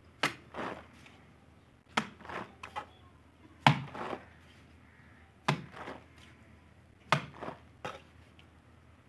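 Mason's steel trowel throwing cement mortar onto a brick wall for the first rough plaster coat. There are five sharp slaps about every one and a half to two seconds, each followed by one or two softer scrapes of the trowel.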